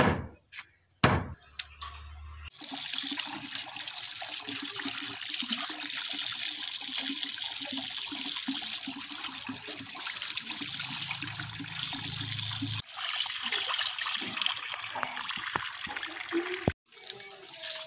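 Water pouring from a pipe over pieces of raw rabbit meat being rinsed by hand in a clay dish, splashing onto pebbles below; a steady rush that starts about two and a half seconds in, breaks briefly about two thirds of the way through and cuts off near the end. A few sharp knocks come first.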